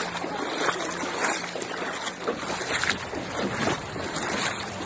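Shallow creek rushing and babbling over its stony bed: a steady wash of water with small irregular gurgles.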